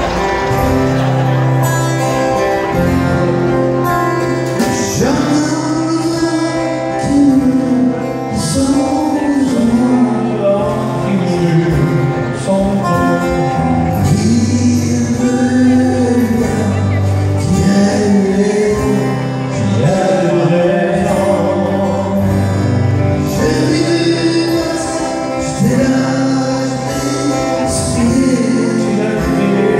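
Live country-western music: a man singing a melody over strummed acoustic guitars.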